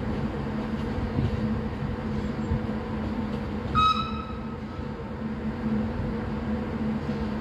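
Stadler GTW electric railcars: a steady hum and low rumble as one pulls away from the station over the pointwork. About four seconds in there is a brief high tone.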